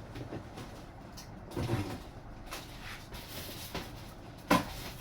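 Handling noises from unpacking a model airplane fuselage from its box: rubbing and scraping of packaging, with one sharp knock about four and a half seconds in.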